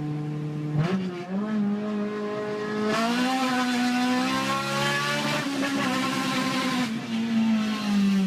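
Honda K20 four-cylinder VTEC engine running at high revs. Its pitch is held steady and jumps up about a second in and again about three seconds in, eases down through the middle, then climbs again near the end.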